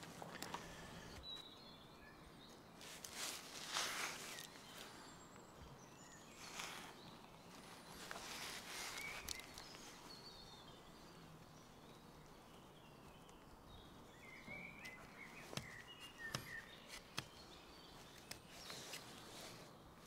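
Faint, short scraping strokes of a Swiss Army knife's small blade shaving thin cuts from a hand-carved wooden knife, with a few bird chirps in the background.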